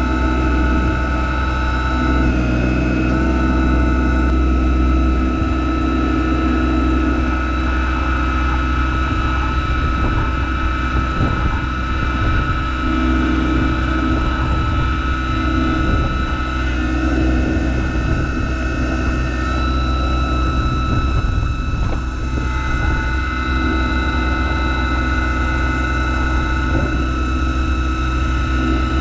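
Yanmar SA324 compact tractor's three-cylinder diesel engine running steadily.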